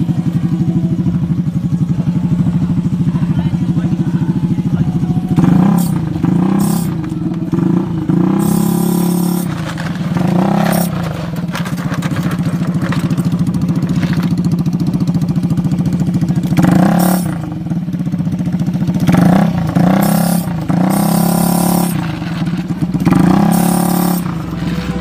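Yamaha Aerox scooter's single-cylinder engine idling steadily, blipped up about eight times in short revs that rise and fall back to idle.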